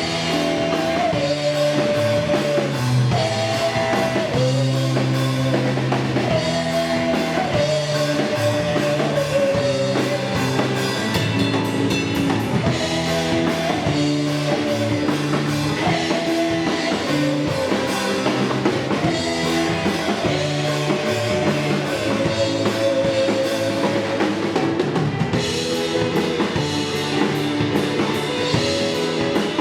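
Rock band playing an instrumental passage live: drum kit and bass under a held melody line that slides between notes.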